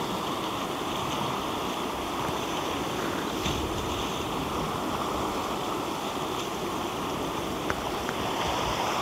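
Steady rushing noise of wind and sea surf, with no clear breaks or single events.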